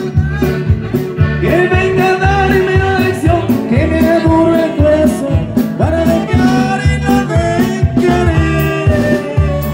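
Live norteña band playing with accordion, saxophone, keyboard and drums. The melody is held notes that slide up into pitch, over a steady bass-and-drum beat.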